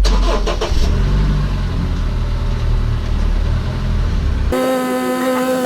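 Honda Step WGN Spada (RG) rolling with a loud low rumble for about four seconds, then an abrupt change to a steady humming tone with a buzzing edge: the abnormal brake noise the owner calls unpleasant.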